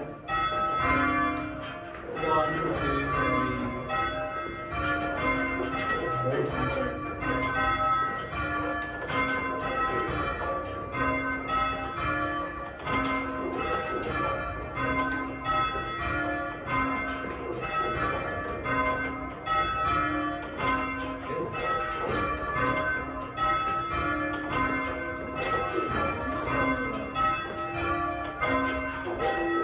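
A ring of church tower bells being rung by a team of bellringers, heard from inside the tower. The bells strike one after another in a steady, repeating pattern, each stroke ringing on under the next.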